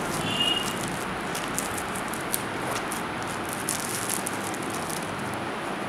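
Thin plastic shrink-wrap crinkling and crackling as it is pulled off a small cardboard box by hand, many small irregular crackles over a steady hiss.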